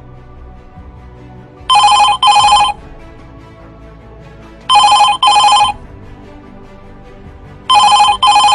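Telephone ringing with an electronic double-ring tone: three pairs of short rings about three seconds apart, over background music.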